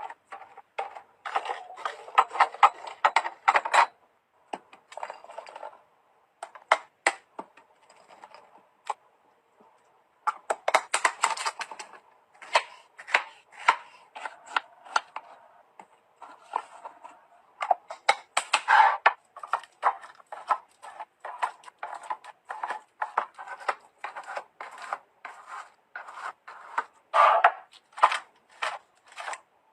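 Irregular clicking, tapping and clattering of small hard objects being handled and set down, in quick runs and clusters with short pauses between, like food containers and packaging being moved around.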